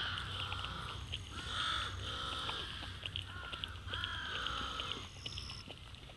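A series of harsh, arching animal calls, about one a second, over a steady high buzz and scattered short clicks.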